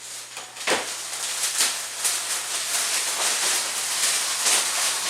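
Crinkling and scraping as a cracked, duct-taped car windshield is handled, with several sharper scrapes over a steady hiss.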